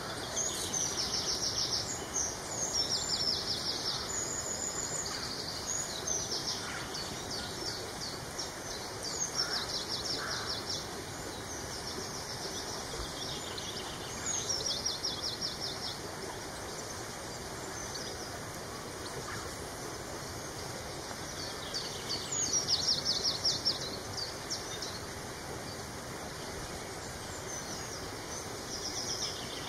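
Songbirds singing: bursts of fast, high trilling notes recur every few seconds over a steady background hush.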